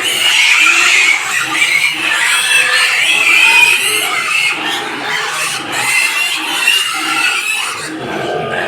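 Many white pigs squealing loudly at once, a continuous shrill overlapping din, as they clamour for food.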